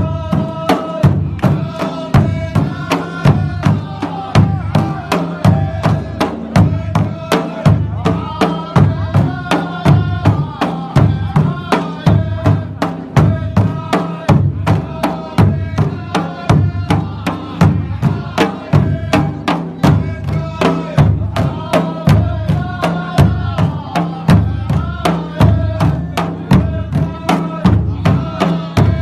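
Large hand-held frame drums beaten in a steady, driving rhythm of about two to three strokes a second, while a group of men chant in unison over them: a traditional Saudi drum-and-chant group dance song.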